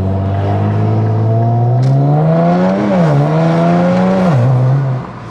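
Infiniti Q50 Red Sport's twin-turbo V6, fitted with catless downpipes and a muffler delete, accelerating as heard from inside the cabin. The engine note climbs steadily in pitch, dips sharply twice and climbs again, then falls off in loudness near the end.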